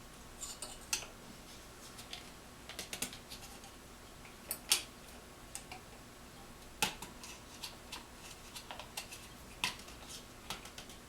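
Irregular light clicks and taps, about a dozen scattered sharp ticks, from small tools and fork parts being handled on a workbench.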